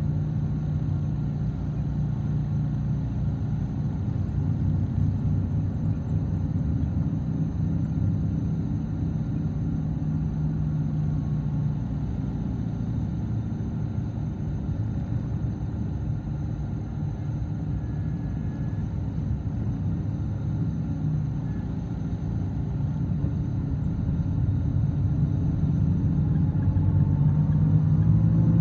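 Road and engine noise of a moving car, heard from inside it: a steady low rumble that grows louder over the last few seconds.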